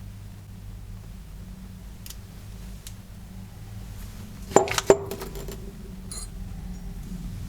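Small metal parts or tools clinking: two faint clicks, then a quick cluster of sharp metallic clinks about four and a half seconds in that ring on briefly, and a small click near the end, over a steady low hum.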